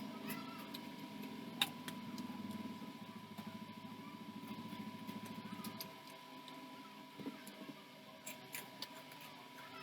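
A small motor running with a fast, even rattle that stops about six seconds in, over a steady high whine, with scattered light clicks.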